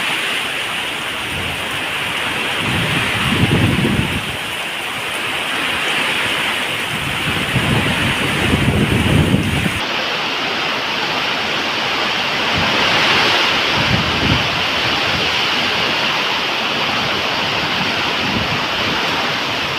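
Waterfall rushing in a steady roar of falling water, with two deep rumbling swells in the first half. About halfway through, the tone changes abruptly and loses its highest hiss.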